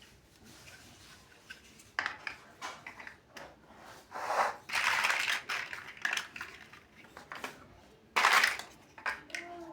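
Plastic building bricks being handled: scattered clicks and clatter of small pieces, with two longer rattling bursts, one near the middle and one near the end.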